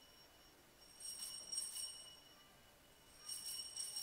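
Altar bells rung twice, each time a bright jangling ring of two quick shakes that fades within about a second: the bells that mark the elevation of the chalice after the consecration at Mass.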